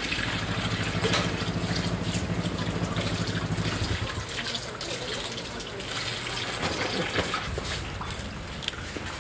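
Tap water running and splashing into a steel sink as slippery live eels are rinsed and handled, with small wet slaps and knocks. A low steady hum sits underneath for about the first four seconds.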